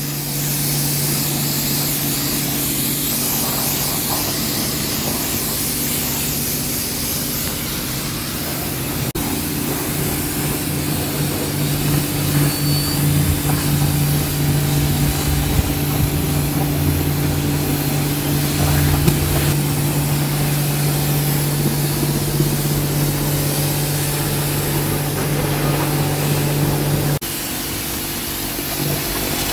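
High-pressure lance of a self-service car wash spraying rinse water onto a car: a steady hiss of spray over the even hum of the pressure pump. The sound shifts abruptly about a third of the way in and again near the end.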